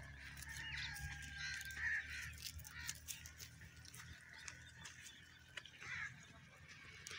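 Sheep and goats grazing close by: soft, irregular crunching and tearing as they crop and chew dry grass. Birds call a few times, most clearly about two seconds in and again about six seconds in.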